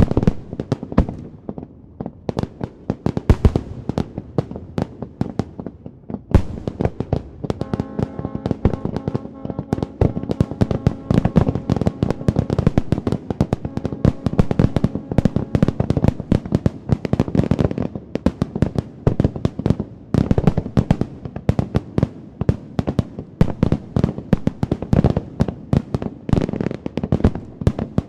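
Fireworks display: a rapid, dense crackle and popping of many bursts, growing much thicker about six seconds in and carrying on unbroken.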